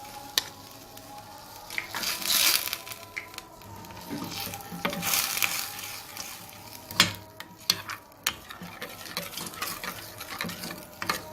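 A spoon mixing a thick mayonnaise-and-cream garlic sauce in a bowl: two longer scraping swishes and several light clicks of the spoon against the bowl.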